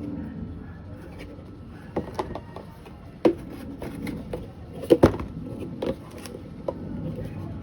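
Unboxing handling sounds: scattered clicks and knocks of items and packaging being picked up and set down on a table, the loudest pair about five seconds in.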